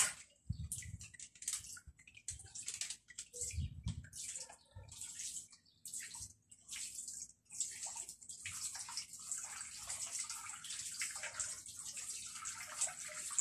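Water splashing and running in short hissing bursts, turning steadier about halfway through, with a few soft low thumps early on, amid wet laundry being handled.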